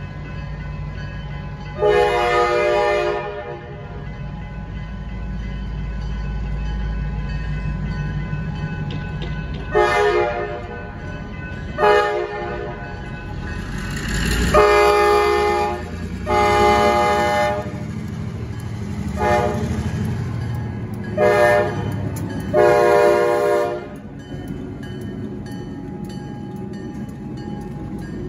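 A diesel locomotive air horn sounding eight blasts, long and short mixed, as two EMD MP15AC switcher locomotives approach a road crossing: the crossing warning signal. Under the horn runs the low rumble of the locomotives' diesel engines.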